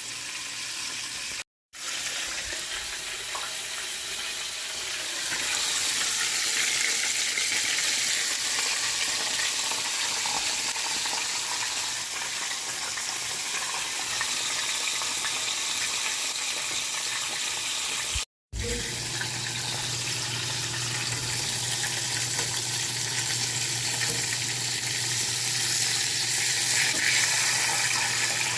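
Cornmeal-breaded spotted bass fillets frying in hot oil: a steady sizzle. The sound cuts out completely for a moment twice, and after the second gap a low steady hum runs underneath.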